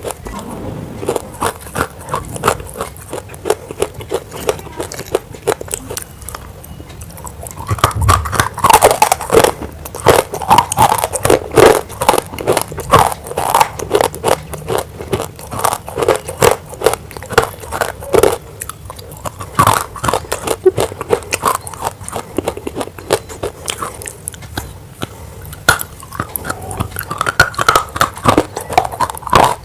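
Close-miked biting and chewing of dry grey clay chunks: a dense run of irregular crunching cracks, louder and fuller from about eight seconds in.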